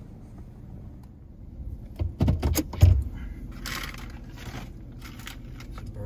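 Pickup truck idling with a low steady hum, while a cluster of knocks and rattles comes about two seconds in, loudest near three seconds. A short rustle and a few more clicks follow: things being handled and shifted inside the cab.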